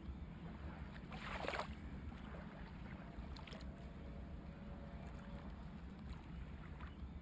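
Faint water washing at sea over a steady low rumble, with a short surge of splashing about a second in and another near the end.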